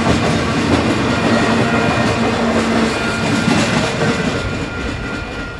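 A train rolling past, its wheels clacking over the rail joints, with a steady ringing tone in the noise. The sound fades away near the end.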